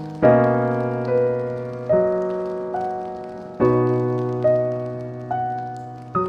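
Slow, gentle solo piano: a full chord struck about every second and a half to two seconds and left to fade, with single melody notes in between. Faint fireplace crackling sits underneath.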